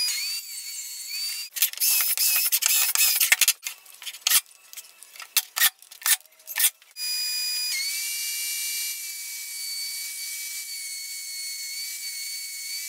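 Power tools at work: a cordless impact driver driving screws in short bursts over the first half, then from about halfway a DeWalt benchtop table saw's motor running with a steady whine.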